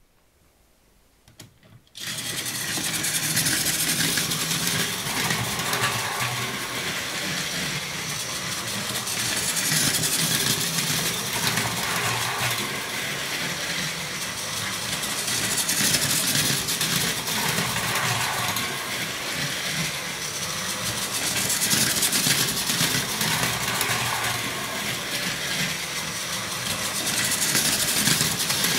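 A Plarail 201-series toy train's small battery motor whirring and its plastic wheels rattling along blue plastic track. It starts about two seconds in, then runs steadily, growing louder and softer about every six seconds as the train circles the loop past the microphone.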